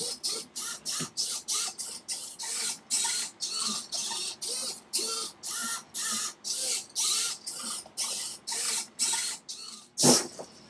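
Hobby servo motors on a hexapod robot's legs whirring in short bursts, about two or three a second, their whine gliding in pitch as each leg moves. Near the end a single loud knock.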